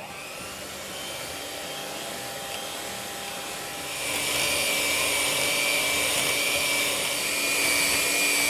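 Electric hand mixer running, its twin beaters whipping a thin gram-flour (besan) batter to beat air into it. The motor starts at once and its whine gets louder about four seconds in.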